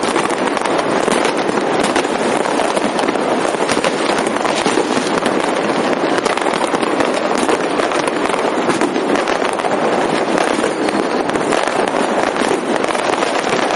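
Massed firecrackers and fireworks going off together in a dense, unbroken crackling barrage, so many reports at once that they blur into one continuous loud rattle.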